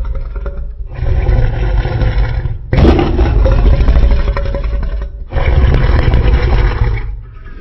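Sea-monster roar sound effect for the fictional creature El Gran Maja: three long, loud, deep roars, each starting and cutting off abruptly, the middle one the loudest.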